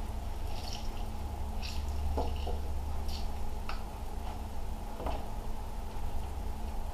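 Lemon halves being handled and fitted into a hand-held lemon press: a few light clicks of the press and soft squishes of the fruit, with juice dripping, over a low steady hum.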